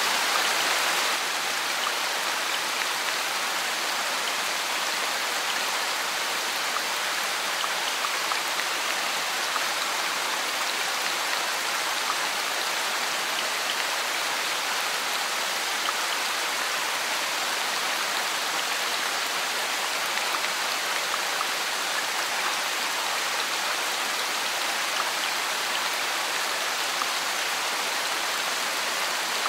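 Steady rain falling, an even hiss with scattered tiny drop ticks. The sound becomes slightly quieter about a second in and then holds steady.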